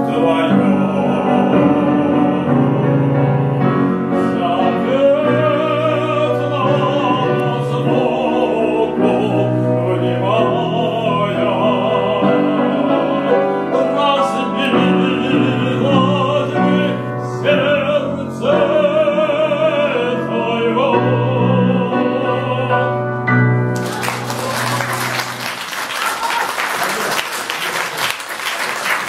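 A male voice sings a Russian romance in classical style, with marked vibrato, over piano accompaniment. The song ends about four-fifths of the way through, and audience applause follows at once.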